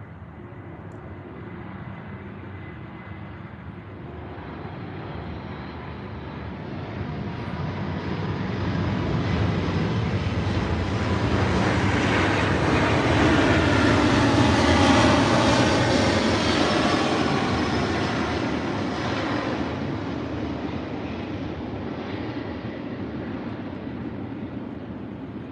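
An aircraft flying over: engine noise swells slowly for about fifteen seconds, peaks, then fades away.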